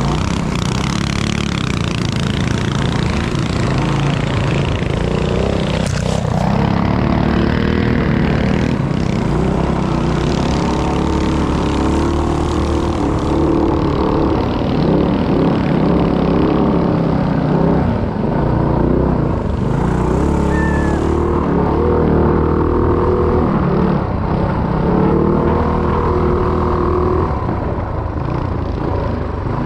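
Small minibike engine running hard, its pitch rising and falling again and again as the throttle is opened and eased off.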